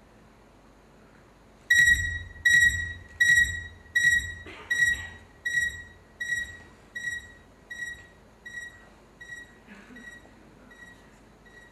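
Electronic beeps from the performance soundtrack: a high, pitched ping with a low thud under each, repeating evenly about every three-quarters of a second after a short quiet start, loud at first and growing steadily fainter.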